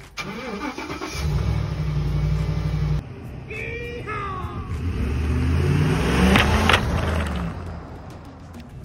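Pickup truck engine running, then accelerating, its note rising as the truck drives up and rolls past, with a few sharp cracks near its loudest point as the tyres go over a plastic seed tray.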